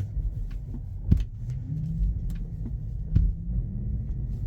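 Tesla Model Y rear drive unit knocking on worn bushings (drive unit mounts) under a low rumble from the moving car: two sharp knocks about two seconds apart, one about a second in and one just after three seconds in. The knocks are the drive unit shifting on its bad mounts as the car accelerates or slows, which Tesla service diagnosed as bad bushings.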